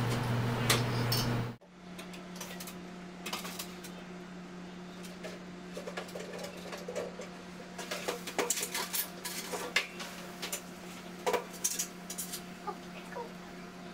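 Metal storage rack and cryoboxes clinking and rattling as they are handled in and lifted out of a liquid nitrogen dewar: scattered clicks and clanks, busiest in the latter half, over a steady electrical hum of lab equipment. A louder low hum cuts off suddenly about a second and a half in.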